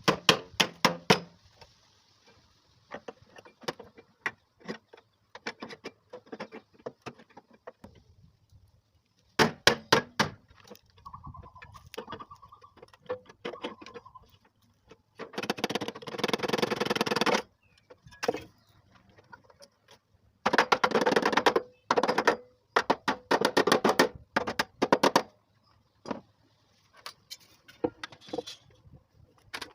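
Irregular knocks and clatters of hand work on a car door and hinge, with two longer stretches of rapid rattling, each lasting two to four seconds, about halfway through and again a few seconds later.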